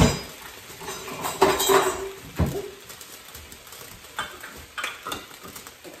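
Kitchenware being handled on a counter: a sharp knock, then a metal clatter with a brief ring about a second and a half in and a thud just after, followed by a few lighter clicks.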